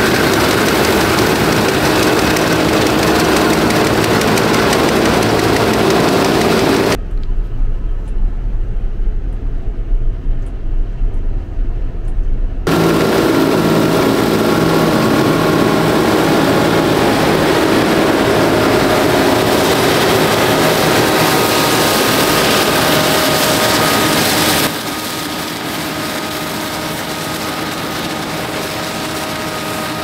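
Nexat combine harvester running in canola: a steady mechanical drone of engine, header and threshing drive, with several steady hums through it. The sound changes abruptly a few times: a deep, dull rumble from about 7 to 13 seconds in, then full again, and somewhat quieter for the last few seconds.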